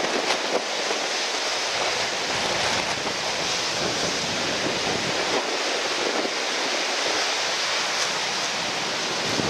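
Surf washing and strong wind, a steady rushing noise with no letup.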